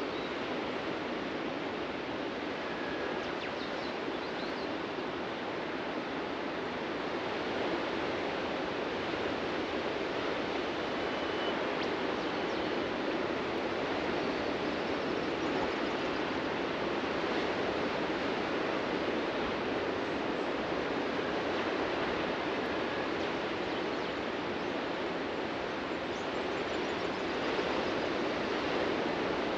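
Ocean surf washing onto a beach: a steady rushing hiss that swells a little now and then, with a few faint, brief bird chirps.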